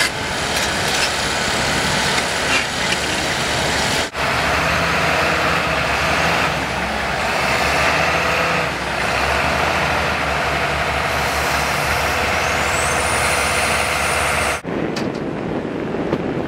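Heavy diesel engines of cranes and an excavator running steadily, with abrupt cuts between shots. Near the end the engine sound gives way to wind and surf.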